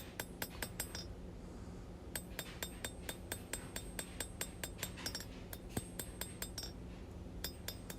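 Light, quick hand-hammer blows on a hot 1084 high-carbon steel knife blade over the anvil, each with a bright metallic ring: planishing at low heat to smooth out hammer marks. The strikes come in runs of several a second with short pauses between.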